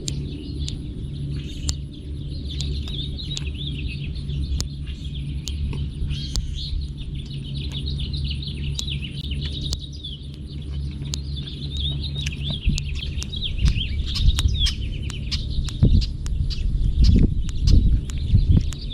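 Small birds chirping continuously over a steady low hum, with scattered sharp clicks throughout and a few low thumps near the end.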